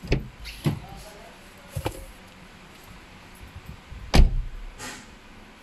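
A handful of short, dull knocks and thumps, irregularly spaced, the loudest about four seconds in.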